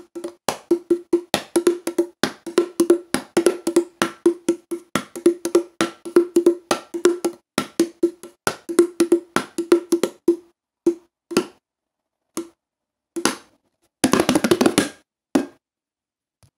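Hand drum beaten in a fast rhythm of sharp strokes, each with a short ringing tone. After about ten seconds the playing thins to a few scattered strokes. A quick roll comes near the end, then one last stroke, and it stops.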